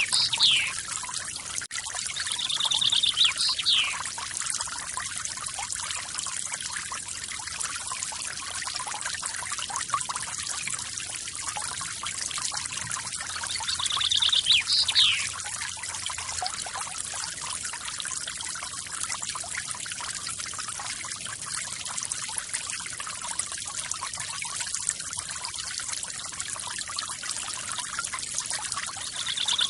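Forest waterfall splashing steadily, with a songbird repeating one short phrase, a high trill ending in a quick falling note, near the start, about three seconds in, and again around fifteen seconds.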